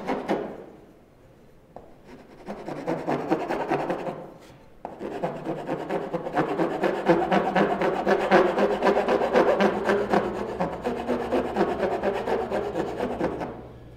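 A half-round file rasps across the end grain of a wooden molding, cleaning up a coped cut back to the layout line. It goes in spells of quick back-and-forth strokes, with short pauses about one and five seconds in.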